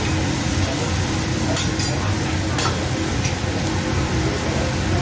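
Beef sizzling on a steel teppanyaki griddle with a steady hiss, and a few sharp clinks of a metal spatula and fork striking and scraping the griddle plate between about one and a half and three and a half seconds in.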